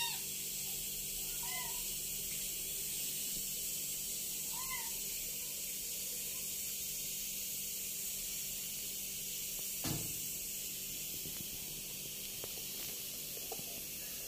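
Two short, faint kitten mews, about a second and a half and nearly five seconds in, over a steady high background hiss, with a single knock near ten seconds.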